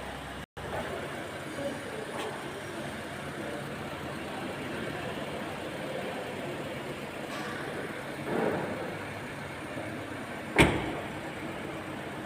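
Steady car noise, with a brief dropout just after the start, a swell about eight seconds in, and a single sharp knock near the end.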